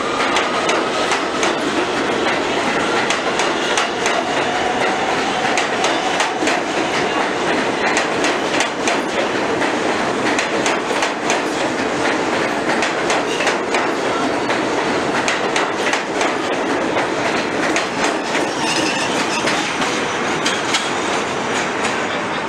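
An R160 subway train pulling out of an elevated station and passing close by. Its motors whine up in pitch in the first seconds, and then its wheels clack steadily over the rail joints as the cars go by.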